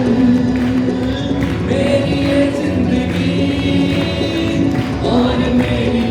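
Live worship music: a group of voices singing a slow gospel song in long held notes over musical accompaniment.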